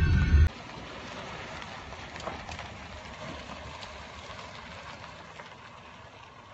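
Music cuts off abruptly half a second in, leaving a faint steady rushing noise with a few light crackles, slowly fading: a Hyundai Tucson SUV on a gravel lot.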